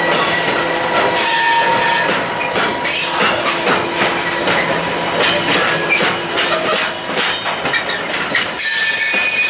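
Freight train of hopper wagons rolling past close by, wheels clattering over the rails in a steady run of clicks, with squealing tones that come and go.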